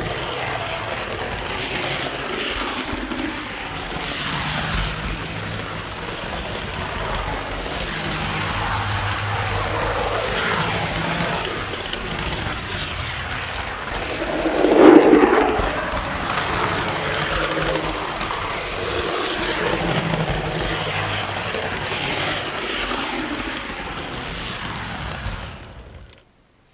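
Model train running along its track, heard up close from aboard: steady wheel-on-rail rattle over a fluctuating motor hum, with a brief louder surge about halfway through. The sound cuts off just before the end.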